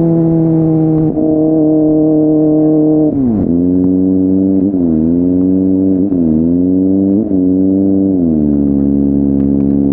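Kawasaki ZX-25R SE's 249 cc inline-four engine running loud through a Yoshimura R55 slip-on exhaust. The engine pitch sinks slowly and then drops sharply about three seconds in. After that it dips and climbs again several times, like a run of gear changes.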